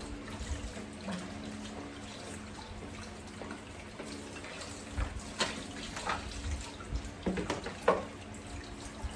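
Water running steadily from a kitchen tap into a sink, with several short knocks and clatters in the second half.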